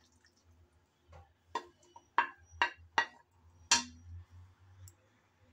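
A wooden spatula knocking and scraping against a plate about six times while fried vegetables are pushed off it into a pan of khichuri. Some knocks leave a short, high ring from the plate.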